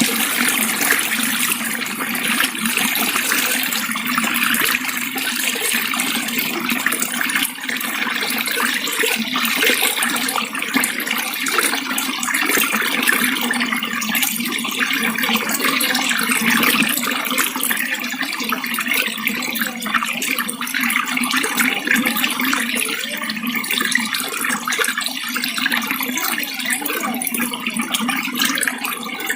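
Water running steadily: a continuous splashing rush with no break.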